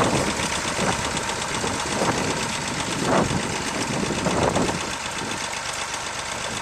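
Tractor engine running steadily at low speed, with a fast, even beat, and a few brief louder swells over it.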